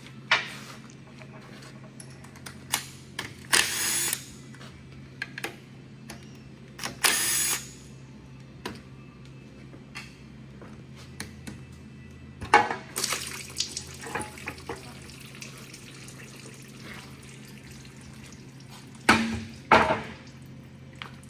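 Cordless drill spinning out the bolts of a 4L60E transmission pan in two short runs of about half a second each. Between and after the runs come sharp metal clinks and knocks of bolts, pan and tools on a steel bench, the loudest near the end. A steady low hum runs underneath.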